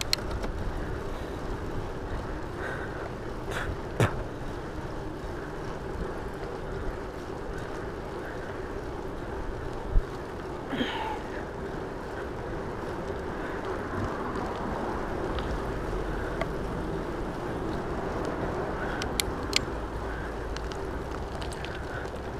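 Bicycle riding along a paved trail: steady tyre and wind noise, broken by a few sharp clicks and knocks from the bike.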